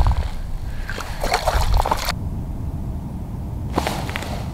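A crappie splashing and sloshing water in an ice-fishing hole as it is handled at the hole, over a low rumble of wind on the microphone.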